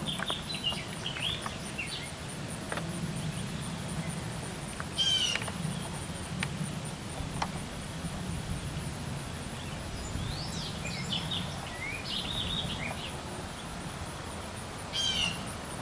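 Outdoor ambience with bird calls: short runs of high chirping notes that fall in pitch, about five seconds in and again near the end, and scattered chirps in between, over a steady low background rumble.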